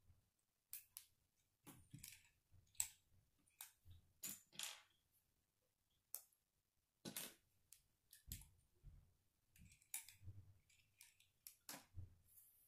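K'nex plastic rods and connectors clicking and snapping together as they are fitted by hand: a scattering of sharp, irregular clicks with soft handling knocks between them.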